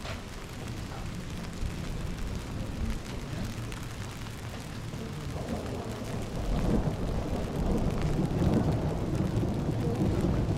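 Light rain in a cobbled street over a steady low rumble, the whole sound growing louder about halfway through.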